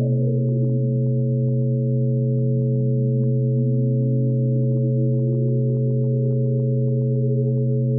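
Electronic drone of several steady pure tones held together, the lowest the loudest. One tone slides down in pitch within the first second, and another rises slowly from about two seconds in to the end.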